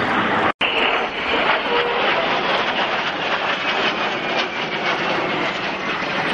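Dassault-Dornier Alpha Jets flying past, a steady jet roar from their twin Larzac turbofan engines with a faint whine that slowly falls in pitch. The sound drops out for an instant about half a second in.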